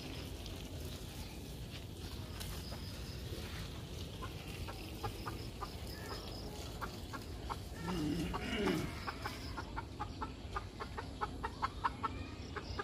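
Chickens clucking in short repeated notes, with one louder, longer call about eight seconds in.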